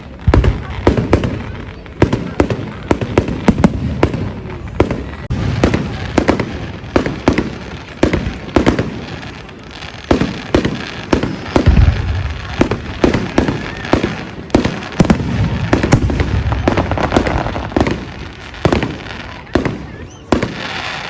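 Public fireworks display: a rapid, continuous barrage of bangs and crackling bursts, with heavier deep booms about halfway through.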